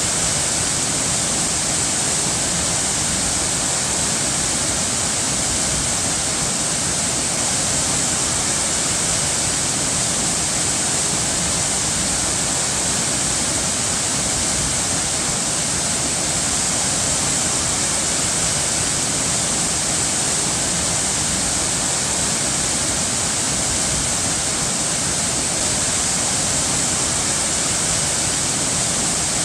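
Running water rushing steadily and evenly, a constant hiss with no splashes or changes.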